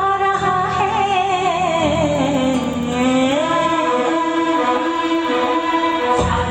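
Hindi film song playing loudly: a long, wavering melody line over the backing, with the bass beat dropping out about two seconds in and coming back near the end.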